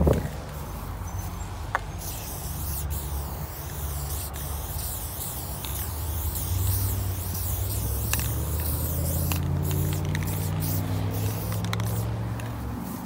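Aerosol spray-paint can hissing as paint is sprayed onto a brick wall, starting about two seconds in and running with a few short breaks. A low steady hum runs underneath.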